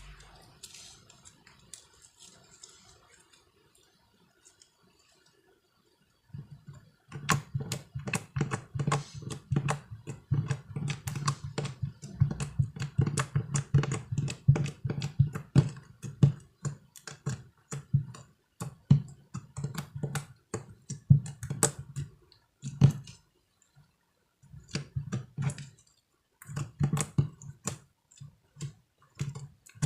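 Slime being squeezed and kneaded by hand: a quick run of sticky clicks and squelches that starts about seven seconds in after a quiet stretch, then comes in bursts with short pauses.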